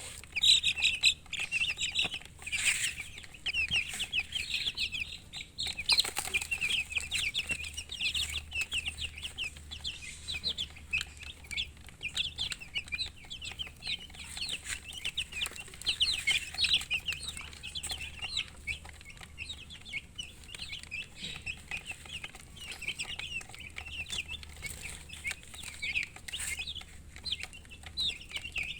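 A brood of baby chicks peeping without pause: many short, high, downward-sliding chirps overlap one another. A few scratchy knocks come in the first several seconds, over a faint low hum.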